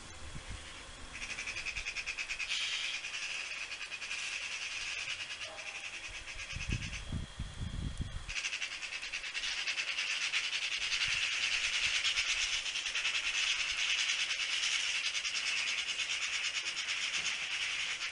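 A dense, steady high-pitched insect buzz from foraging insects on flowering ivy, growing stronger about eight seconds in, with a brief low rumble on the microphone shortly before.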